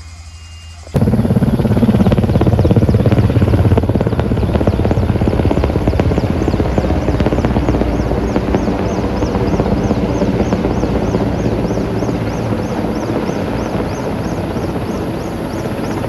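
Firefighting helicopter with a water bucket slung beneath it, flying low overhead. Its rotor beat and engine are loud and steady, starting abruptly about a second in and fading slowly as it moves away.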